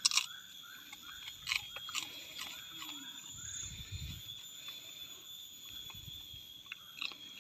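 Black puppy crunching and chewing a crispy fried snack, with sharp crunches just after the start and again about one and a half and two seconds in, then quieter chewing clicks.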